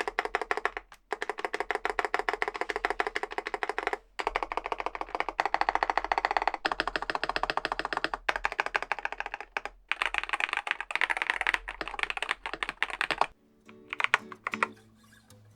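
Fast typing on a Groovestone (Mstone) GS series mechanical keyboard: a dense run of keystrokes with a few short pauses. It thins to a handful of scattered keystrokes near the end.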